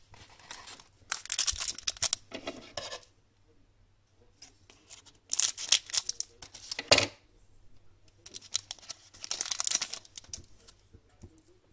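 A foil trading card pack wrapper being torn open and crinkled, in three rustling, crackling bursts.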